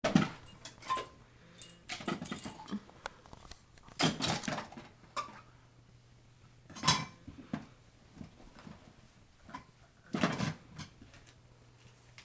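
Irregular knocks and clatters of toys being handled in a plastic toy bin, about half a dozen louder clatters spread out with quiet between them.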